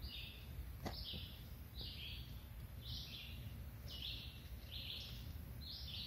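Short, raspy, high-pitched chirps repeating about once a second from a calling animal, with one sharp click just under a second in.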